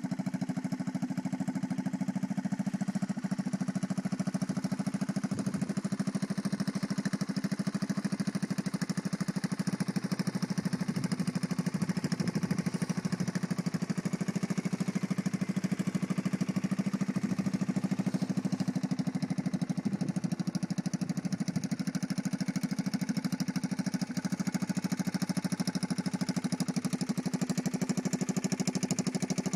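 1979 Honda CT70 mini trail bike's small single-cylinder four-stroke engine idling steadily.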